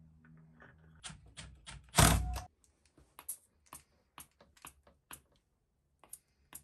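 Hand pump with gauge being squeezed to pressurise a two-stroke hedge cutter's crankcase for a leak test: a string of sharp clicks from the pump handle at uneven spacing, roughly two a second. About two seconds in, before the clicks start, there is a loud half-second burst of noise.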